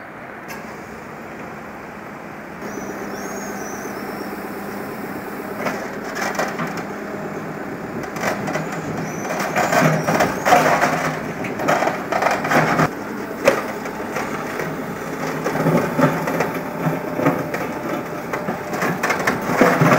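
JCB backhoe loader's diesel engine running while its bucket digs and scrapes through broken asphalt and old concrete curb stones. From about six seconds in come repeated cracks, knocks and crunches as the rubble breaks and shifts.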